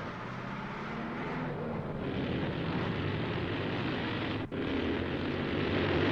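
Cartoon vehicle engine sound effects: a steady engine drone with a brief break about four and a half seconds in.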